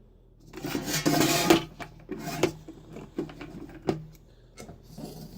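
Rexair Model B vacuum being handled and fitted onto its wheeled dolly: a scraping rub about a second in, then several light knocks and clicks as the parts are set in place. The motor is not running.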